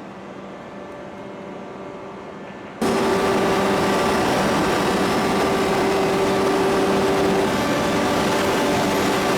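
Steady hum of forging-plant machinery with a low held tone, jumping abruptly about three seconds in to much louder steady machinery noise with a strong held tone.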